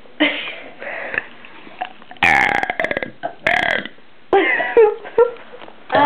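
Girls burping on purpose after gulping soda: a run of several croaky, pulsing burps. The loudest and longest comes about two seconds in, another about a second later.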